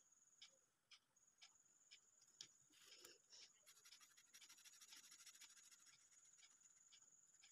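Faint scratching of a felt-tip marker colouring on paper, in short strokes about two a second, with quicker back-and-forth strokes from about three and a half seconds in.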